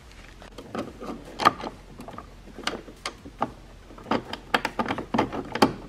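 Irregular clicks and taps of needle-nose pliers and small bolt-and-washer hardware against a tow mirror's metal mounting bracket and plastic housing, as the washers are worked into place. They come scattered, the loudest about a second and a half in and near the end, with a quick run of them in the last two seconds.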